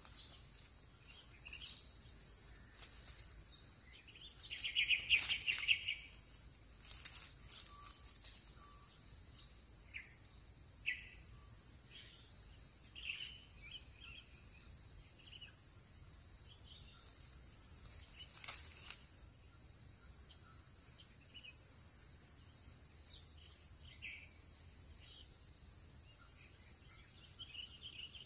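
Steady high-pitched drone of insects, with scattered short chirps and a louder burst about five seconds in.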